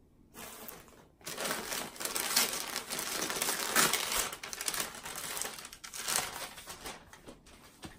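Packaging crinkling and rustling as clothing is unwrapped and pulled out of a subscription box: a short rustle, then steady crinkling from about a second in that stops shortly before the end.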